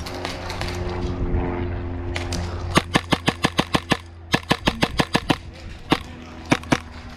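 Airsoft guns firing: two quick bursts of about eight or nine sharp shots each, then a few single shots.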